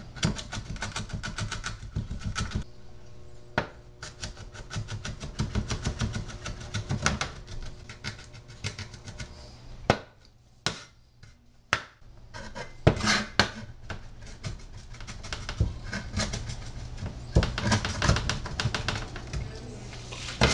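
A cleaver mincing garlic on a plastic cutting board: quick runs of chopping knocks. About halfway through there is a pause of a couple of seconds broken by a few single knocks.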